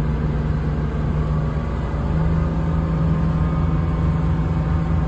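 Tour boat's engine running under way, a steady low drone that rises slightly in pitch and loudness about two seconds in.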